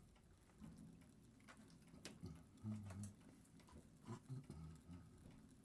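Faint, scattered small clicks and taps of metal watchmaking tools handling a watch movement, at irregular intervals, with a few soft low bumps.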